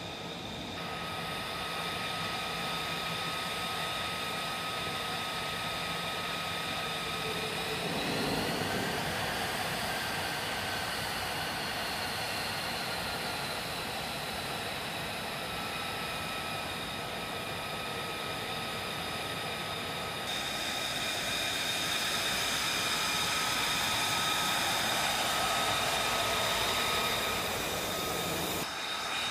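F-35B's Pratt & Whitney F135 jet engine running at low power on the ground: a steady whine with high whistling tones over a rushing hiss, its pitch swelling up briefly about eight seconds in.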